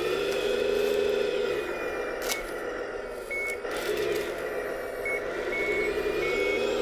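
CS-RC16 sound module of an electric 1:14 scale RC wheel loader playing a simulated diesel engine that revs up and settles back twice. In the second half its reversing beeper sounds several short high beeps about half a second apart.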